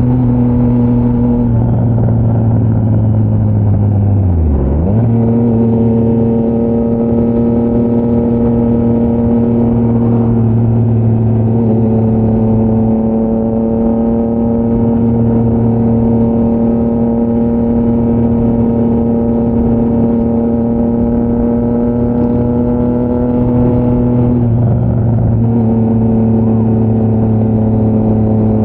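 Triumph Trident 660's inline three-cylinder engine through a GPR Powercone Evo aftermarket exhaust, running at steady cruising revs. The revs dip briefly about four and a half seconds in and again near twenty-five seconds, then settle back.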